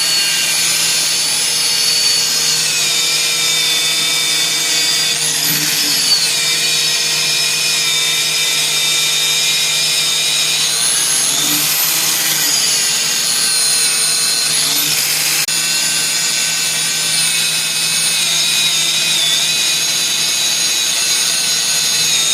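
Power grinder running steadily with a high whine, grinding corrosion out of a leaking tyre and wheel's bead area. Its pitch sags and recovers a few times as it bites into the metal under load.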